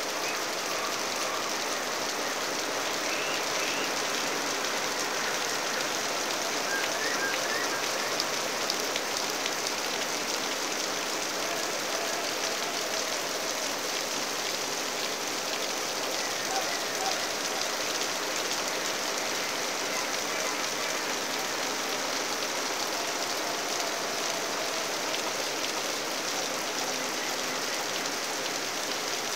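Steady rain falling on garden foliage and ground, an even hiss that holds without a break.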